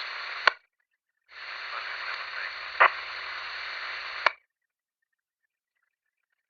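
Police two-way radio static: a transmission's hiss cuts off with a squelch click about half a second in. Another keyed transmission follows, about three seconds of hiss with a sharp click partway through, ending in another squelch click.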